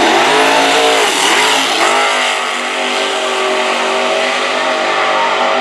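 Two drag-racing vehicles launching side by side, one of them a compound-turbo, nitrous-fed diesel ute, and running hard down the strip. The engine pitch climbs and drops twice in the first two seconds, then holds steady as they pull away.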